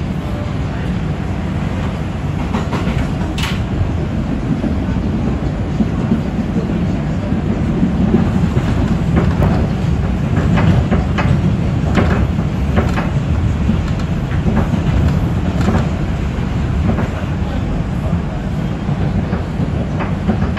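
R142 subway car running at speed, heard from inside the car: a steady low rumble of wheels and running gear with irregular sharp clicks as the wheels cross rail joints, a little louder in the middle.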